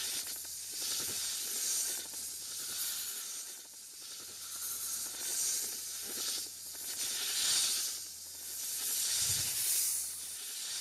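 Giant snake creature sound effects: a string of long, breathy hisses, each swelling and fading, about one every two seconds.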